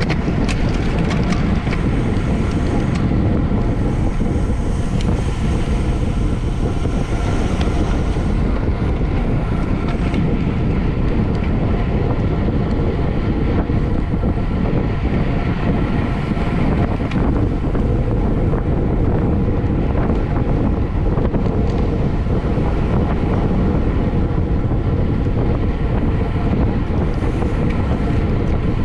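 Wind rushing steadily over the microphone of a camera riding along in a bicycle race at speed.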